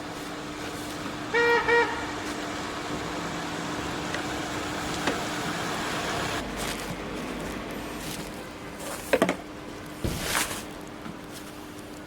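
A car horn beeping twice in quick succession about a second and a half in, over a steady low hum. Near the end, a brief sliding squeak and a few knocks.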